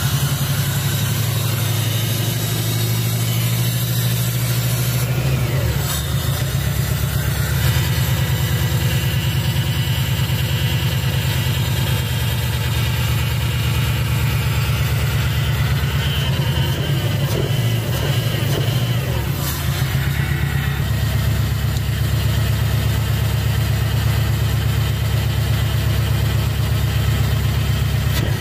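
Subaru EJ20 turbocharged flat-four engine idling steadily just after starting, with its turbo inlets open and the intercooler not fitted. The idle comes after a repair for a P0172 running-rich code, with no engine light.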